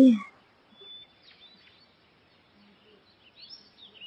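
Faint birdsong: scattered short, high chirps, one just under a second in and a small cluster near the end.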